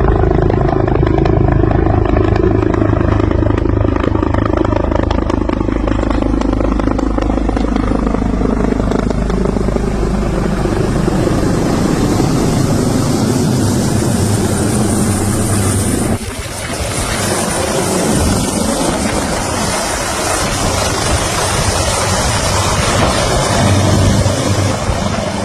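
Helicopter running loud and close, its pitch slowly falling over the first dozen seconds. After a brief dip about two-thirds of the way in, it gives way to a loud, even rushing noise.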